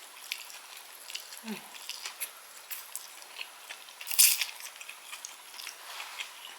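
Close-up mouth sounds of a person eating: chewing with small wet clicks and lip smacks, a short low hum about one and a half seconds in, and a louder, noisier bite or smack about four seconds in.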